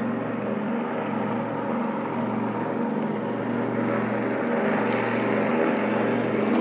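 Twin Pratt & Whitney R-1830 radial engines of a PBY Catalina flying boat running steadily as it skims along the lake surface: a loud, even propeller drone with a slow regular pulsing, growing a little louder near the end.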